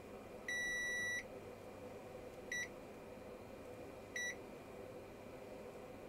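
Digital multimeter continuity tester beeping as its probes are put across surface-mount fuses on a circuit board. There is one long steady beep about half a second in, which shows continuity through a fuse, then two short beeps a second and a half apart.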